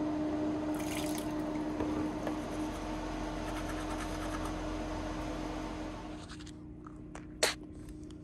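Teeth being brushed with a toothbrush, a faint scrubbing over a steady hum with a low held tone. The hum drops away about six seconds in, and a single sharp click follows near the end.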